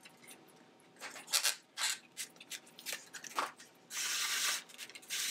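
Rattan reed rustling and scraping in short bursts as flat reed lashing is drawn through and tightened around a basket rim, with longer drawn hisses in the second half.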